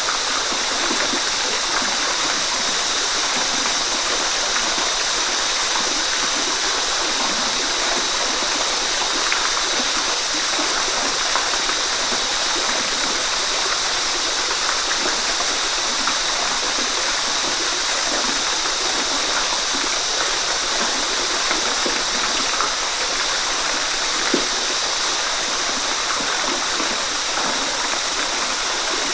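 Waterfall: a steady, even rush of falling water, mostly hiss in the upper range, with faint small splashes in it.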